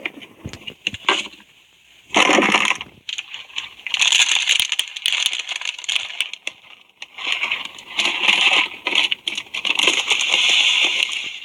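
Slime being mixed and squished, giving irregular bursts of crackling, with dense fine clicks and pops.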